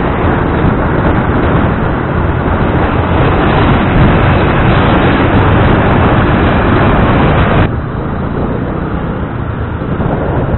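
Loud wind rushing over the microphone, with road and traffic noise, while riding a scooter through city traffic. About three-quarters of the way in it drops suddenly to a quieter, duller rumble.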